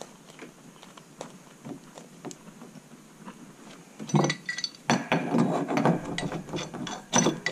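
Faint handling clicks as a brass pipe fitting is turned by hand. From about four seconds in, a wrench is picked up and fitted onto the brass fitting, with loud, rapid metallic clicking and rattling.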